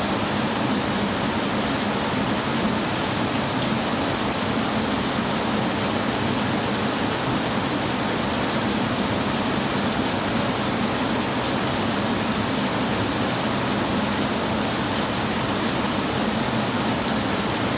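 Steady rain falling on a tin roof: an even, unbroken hiss of drops with no thunder.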